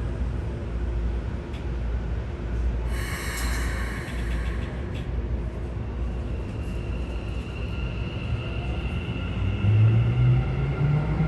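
Keikyu 1000-series electric train heard from inside a motor car: a low steady rumble with a short hiss about three seconds in, then from about nine seconds in a rising motor whine as the train starts to pull away. The motors on this car make an abnormally loud noise.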